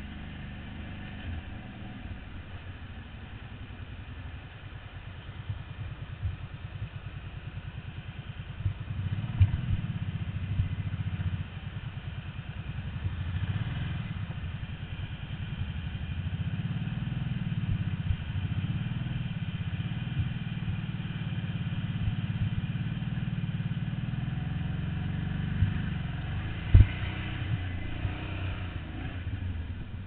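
ATV engine running at low speed under load, working harder from about eight seconds in, with sharp knocks and clatter from the machine jolting over rocks; the loudest knock comes near the end.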